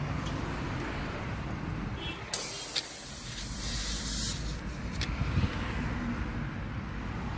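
A sharp pressurised hiss lasting about two seconds, starting about two seconds in, over a steady low rumble of traffic.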